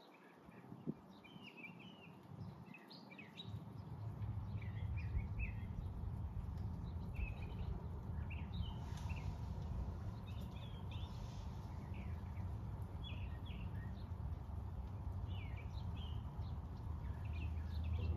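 Songbirds chirping again and again over a low rumble that begins about four seconds in and builds steadily louder.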